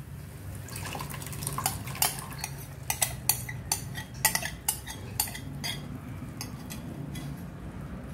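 Metal spoon clinking and scraping against a glass bowl as thick cooked tur dal is scooped out into the pan: a quick run of light clinks that stops about six seconds in, over a steady low hum.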